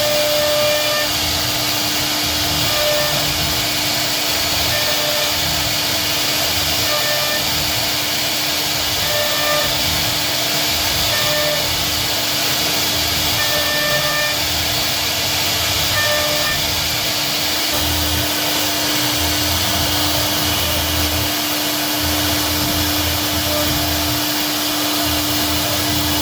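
CNC router spindle running steadily while carving wood, a constant hum with a hiss over it and higher tones that come and go.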